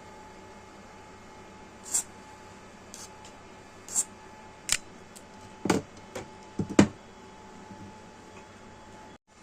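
A series of irregular sharp clicks and light knocks from small hard objects, about eight of them over five seconds, the loudest two thirds of the way in. Under them runs a steady faint hiss with a thin hum.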